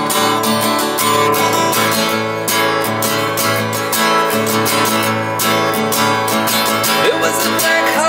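Acoustic guitar strummed in a steady rhythm, chords ringing.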